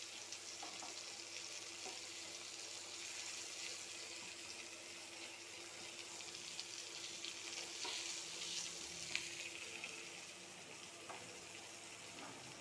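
Bitter gourd slices and green chillies shallow-frying in oil in a pan: a steady sizzle with small scattered crackles, and one sharper pop about nine seconds in.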